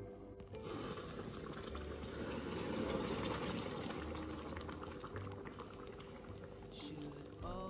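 Freshly boiled water poured from a glass electric kettle into a wide pan of food on the stove: a steady splashing stream that starts about half a second in and eases off toward the end.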